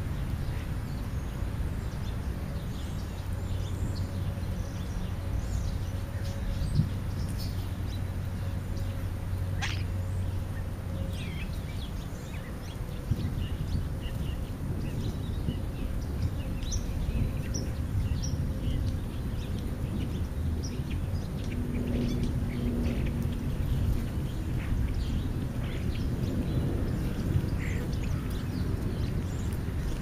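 Short bird calls and chirps scattered throughout, over a steady low rumble.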